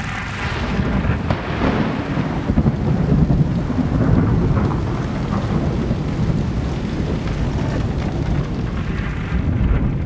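Mountain thunderstorm: a long, loud low rumble of thunder over wind and rain.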